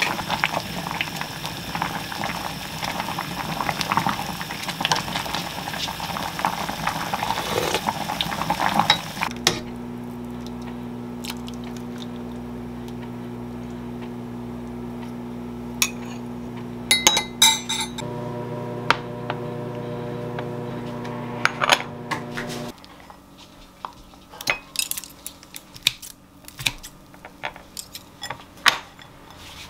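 A pot of seaweed soup boiling hard, with the odd clink of a ladle, for about the first nine seconds. Then a steady hum under sharp clinks of a metal ladle against a ceramic bowl as the soup is served, and from about two-thirds of the way in, scattered light clinks of dishes and cutlery.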